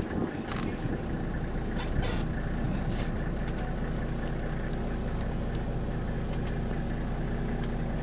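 Safari vehicle's engine idling steadily, a low even hum, with a couple of short clicks in the first two seconds.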